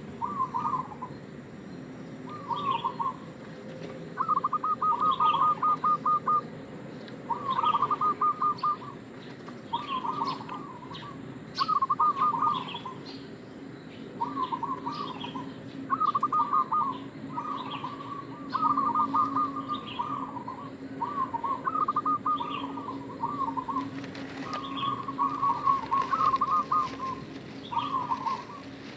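Zebra dove (perkutut) singing: phrases of rapid, trilled cooing notes, each lasting one to two seconds and repeated about every two seconds.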